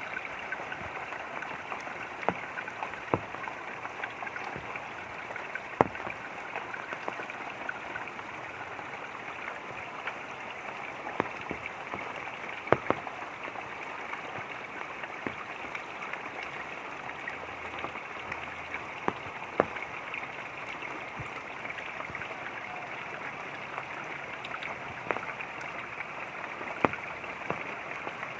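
Running water with light rain: a steady rushing wash, with scattered single drops striking close by as sharp ticks every second or two.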